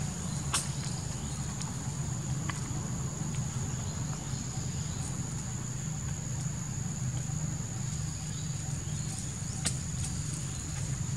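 Outdoor ambience: a steady high-pitched insect drone over a low rumble, with a couple of sharp clicks, one about half a second in and one near the end.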